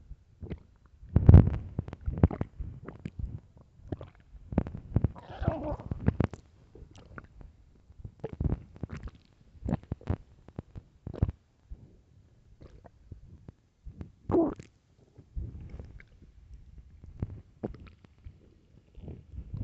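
An empty, hungry stomach growling: a run of irregular short gurgles and pops. Longer, wavering gurgles come about five seconds in and again around fourteen seconds, and the loudest pop is about a second in.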